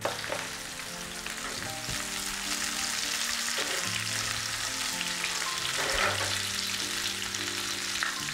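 Stuffed okra frying in hot oil in a nonstick pan: a steady sizzling hiss that starts as the okra goes into the oil and builds slightly.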